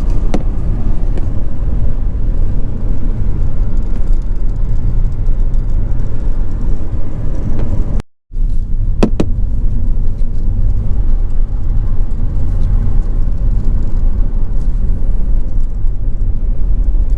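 Car driving, a steady low road and engine rumble that drops out for a moment about eight seconds in.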